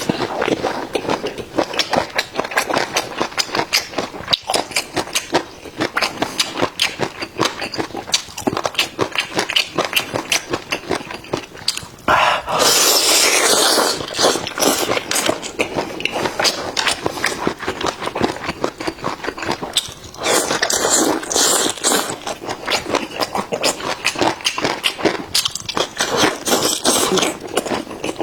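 Close-miked chewing of boneless chicken feet: a dense run of wet smacking and clicking mouth sounds. There are louder, hissier stretches about twelve seconds in and again around twenty seconds.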